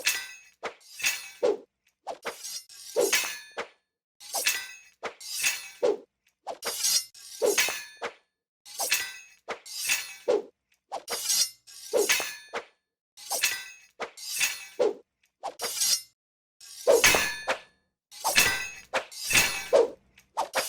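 Foley sword clashes made by striking cutlery and a sharp knife together: a long series of short metallic clinks and clangs, each ringing briefly, about one a second with short silences between.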